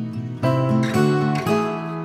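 Gentle instrumental background music, with a chord struck about a quarter of the way in and another near the end.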